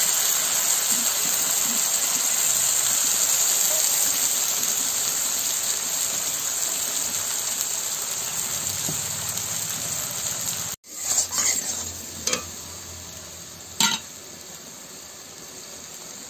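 Ginger-garlic paste frying with browned onions in hot oil in a kadai: a loud, steady sizzle that fades slowly as it is stirred with a metal spatula. About two-thirds through it cuts off abruptly and gives way to a quieter bubbling sizzle with a few sharp knocks of the spatula against the pan.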